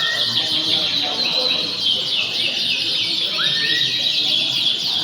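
Several canaries singing at once in a dense chorus of fast trills and chirps, with a rising whistle sliding up once about three seconds in, over a low murmur of voices.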